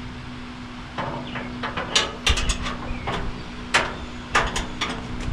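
Hand tools clicking and knocking against metal while working loose the body-block mounts of a 1928 Ford Model A: about a dozen sharp, irregular strikes starting about a second in.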